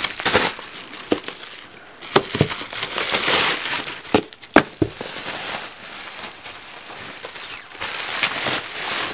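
Plastic bubble wrap crinkling and rustling as large boxed CD albums are pulled out of it, with several sharp knocks of the album boxes being handled.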